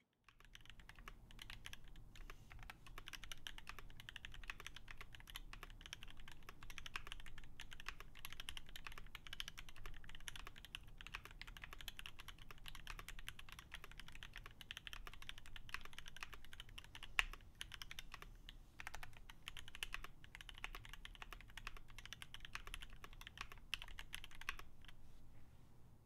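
Fast, continuous typing on a custom 65% mechanical keyboard: Durock switches under double-shot PBT keycaps, in a heavy CNC-machined aluminium KBDfans Tofu65 case with foam inside. One keystroke stands out louder about two-thirds of the way in, and the typing dies away just before the end.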